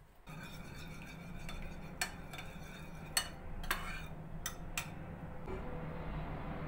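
Cutlery and dishes in use: about five sharp clinks between roughly two and five seconds in, over a steady low hum.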